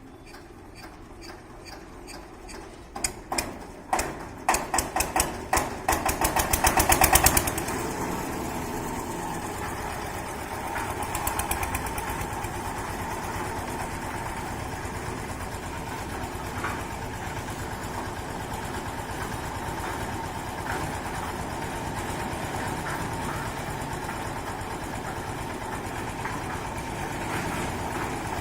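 Concrete mixer's engine starting: a series of strokes that speed up over a few seconds, then the engine settles into running steadily.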